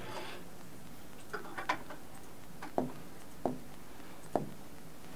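Half a dozen faint, sharp clicks or taps at irregular spacing, clustered about one and a half seconds in and then spread out, over quiet room tone.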